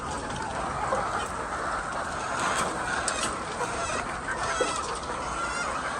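A flock of hens clucking and calling together in a steady, dense din, with many short overlapping calls and occasional clicks.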